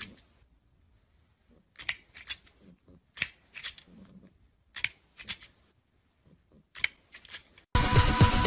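Plastic toy crocodile clacking in short runs of two or three sharp clicks, about every second and a half, as a cat paws at it. Loud music starts near the end.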